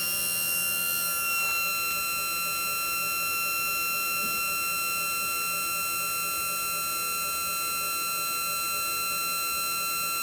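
Lippert hydraulic leveling system's electric pump motor running steadily with a high, even whine as the jacks are lowered, its pitch stepping slightly about a second in.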